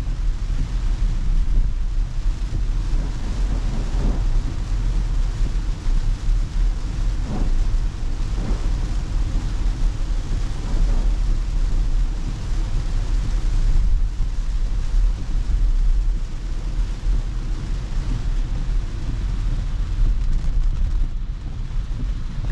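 Steady low rumble and hiss inside an electric car's cabin while driving through heavy rain: rain on the glass and tyres on the wet road.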